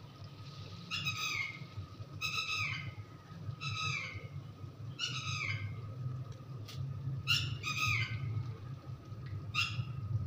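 A bird calling over and over: about seven short calls, each falling in pitch, roughly one every second and a half. A steady low hum runs beneath them.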